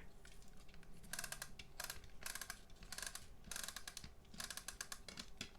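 Faint, irregular plastic clicking and rasping from a VHS cassette's parts being handled and fitted together, in about eight short clusters.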